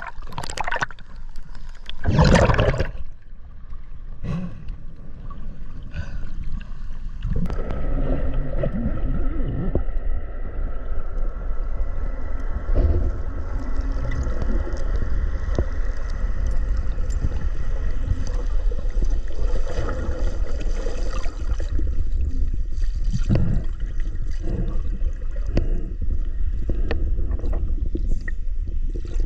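Underwater sound heard through a diving camera: a low muffled rumble of moving water with gurgling bubbles. Two loud bursts of bubbles come in the first few seconds, and a faint steady whine runs through much of the middle.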